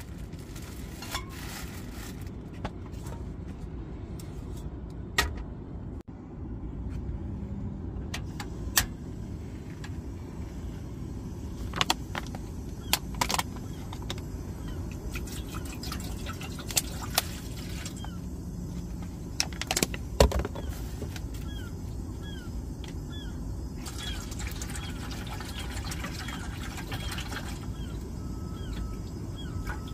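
Scattered clicks and clanks of a portable butane camp stove and a metal saucepan being handled and set in place, over a steady low rumble. Toward the end, water is poured from a plastic bottle into the saucepan.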